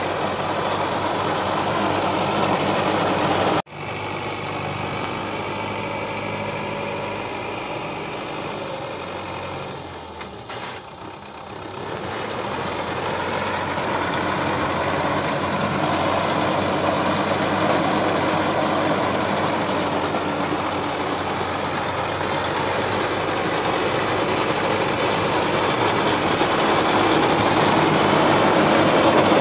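Sonalika DI-750 III tractor's diesel engine running steadily under load as it drives a rotavator through dry soil, the engine hum mixed with the churning noise of the tiller. The sound cuts out for an instant about four seconds in, dips around ten to twelve seconds, then grows gradually louder toward the end.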